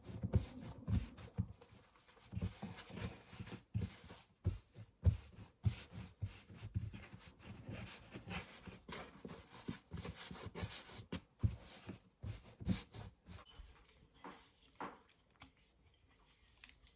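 Dough being handled and worked on a countertop: irregular soft thumps and knocks with some rubbing, sparser near the end.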